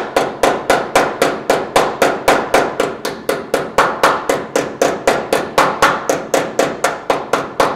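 Steel ball-peen hammer tapping rapidly on sheet steel, about four blows a second, each with a short metallic ring. It is beating a tack-welded patch seam down tight against the running board.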